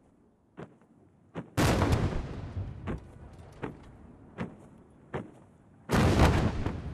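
Two ceremonial salute cannon shots, one about a second and a half in and one near the end, each echoing away over about a second. Between them come short sharp knocks at a steady pace, about four every three seconds.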